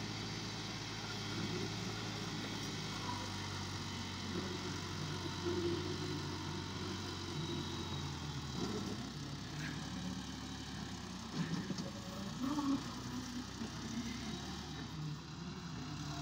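Farm tractor diesel engines running steadily while a tractor tows a loaded soil trolley, the engine note shifting slightly about halfway through.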